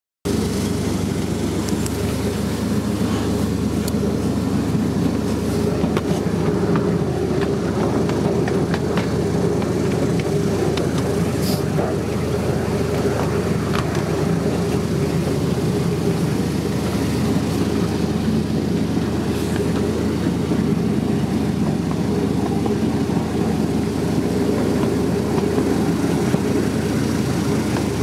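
Miniature railway train running steadily along the track, heard from an open passenger car: a continuous low rumble with a few light clicks scattered through it.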